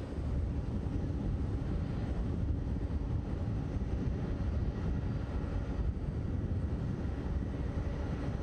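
Boeing 747's four jet engines running at low taxi power as the airliner rolls slowly along the apron: a steady low rumble with a faint high whine.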